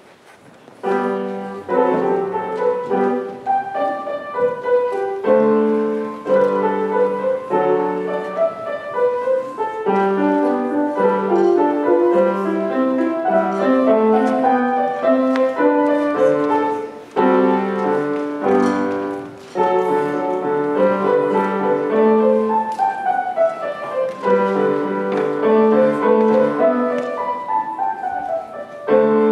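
Grand piano played solo, starting about a second in and pausing briefly twice in the middle.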